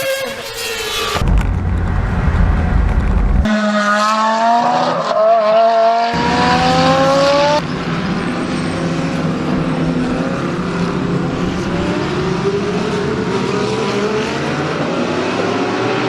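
GT3 race car engines at high revs, the pitch climbing as the cars accelerate and shift up through the gears. The sound changes abruptly several times in the first half, as from one passing car to the next, then settles into a long rising run.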